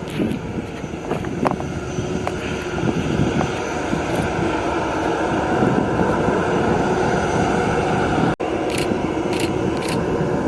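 Airbus A321 jet engines running steadily at taxi power as the airliner backtracks along the runway.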